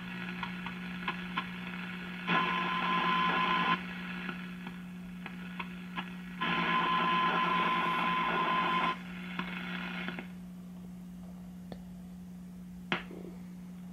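Shortwave static and hiss from a 1939 Fada Model 169 tube radio being tuned across its top band, over a low steady hum. Twice a signal comes up out of the noise with a steady whistle tone, first briefly and then for about two and a half seconds, then drops back to static. A single sharp click comes near the end.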